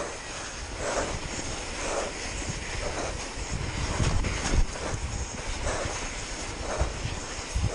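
Steady rushing noise of wind on the microphone and mountain-bike tyres running through snow on a fast descent, with heavier low rumbling about four seconds in.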